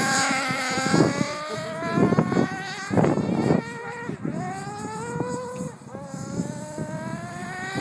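Radio-controlled off-road buggy's motor revving up and down as it drives, its pitch rising and falling, with short rushes of noise, the loudest about three seconds in.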